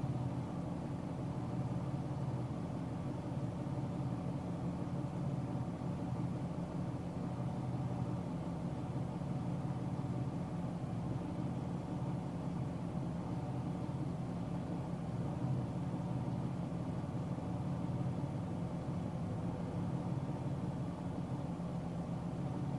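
Car driving along a highway: a steady, even drone of engine and tyre noise on the road surface.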